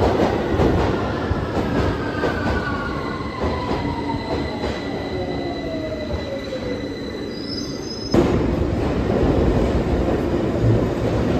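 London Underground Northern line tube train slowing into a platform: a whine falling steadily in pitch as it brakes, over the rumble of wheels on rail. About eight seconds in the sound cuts abruptly to a louder, steady rumble of another tube train running.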